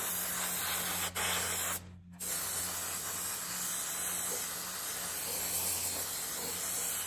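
Airbrush spraying a thinned ink wash: a steady hiss of air with a low hum underneath. The hiss cuts out for a moment about two seconds in, then resumes.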